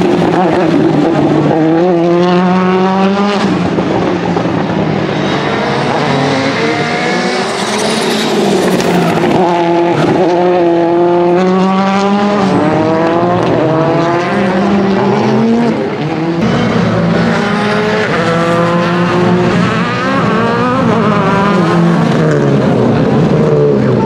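Rally car engines, a Citroën C3 and a Ford Fiesta among them, running hard through the gears: the pitch climbs steeply and drops back at each upshift, again and again as one car after another accelerates past.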